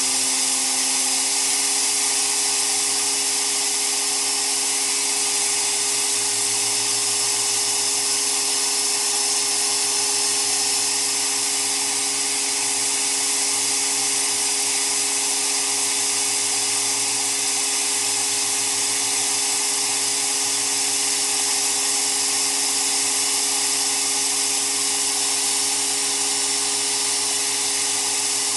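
Sandblasting of a steering rack shaft in a gas-dynamic spraying machine, cleaning the metal before spray coating: a steady, loud hiss of air and abrasive, over a steady low machine hum. One of the hum's tones stops about a second in.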